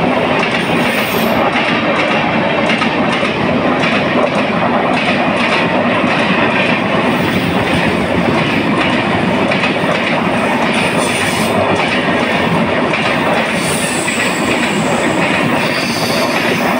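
Red LHB passenger coaches of an express train rolling past at speed. Their wheels clatter over the rail joints in a steady, rapid clickety-clack.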